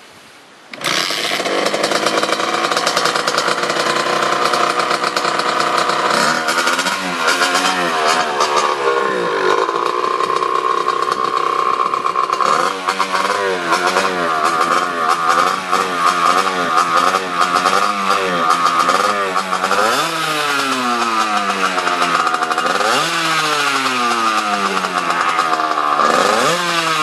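A Kawasaki 80 cc two-stroke dirt bike engine starts up about a second in. It then runs and is revved again and again, its pitch rising and falling with each throttle blip.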